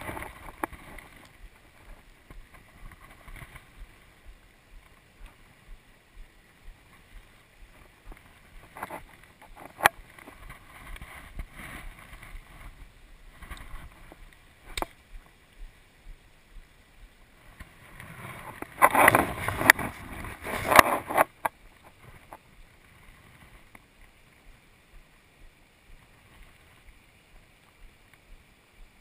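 River water lapping and splashing close by around a wading angler, with small splashes about once a second. Two sharp clicks come a third and half of the way in, and about two-thirds of the way in there is a louder spell of splashing and rustling lasting a few seconds.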